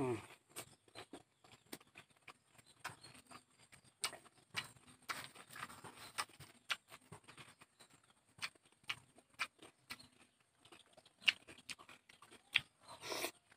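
Close-miked chewing of a fish and raw-vegetable salad: irregular wet clicks, smacks and crunches, opening with a short hummed "mm" and with a louder crunch about thirteen seconds in.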